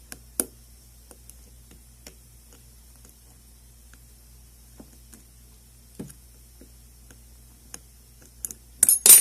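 Lock picking in a modified Saker 65mm padlock: faint, scattered ticks and clicks of a pick and tension wrench working in the keyway. Near the end comes a loud metallic clatter as the tension wrench pops out of the lock.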